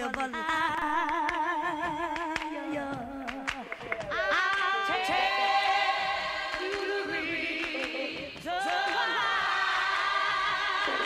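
Unaccompanied gospel singing: a voice holds a long note with heavy vibrato, then several voices come in together in sustained harmony about four seconds in, and again near the end.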